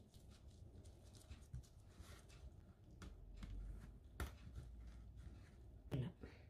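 Bamboo sushi mat being pressed and rolled around a maki roll on a wooden cutting board: quiet handling with a few soft clicks and knocks, the sharpest about four seconds in.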